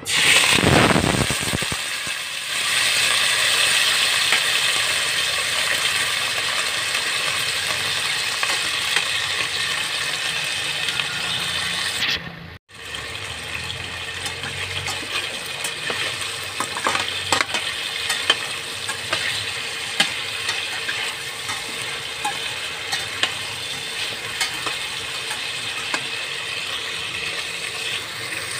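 Cubed potatoes and carrots dropped into hot cooking oil in a stainless steel pot, setting off a loud burst of sizzling that settles into steady frying. After a brief dropout about halfway, the frying goes on with small clicks and scrapes of a metal slotted spatula stirring the pieces.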